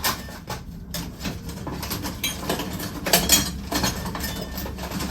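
Irregular clinking and rattling of small hard, metallic-sounding objects being handled, as when rummaging through tools or parts.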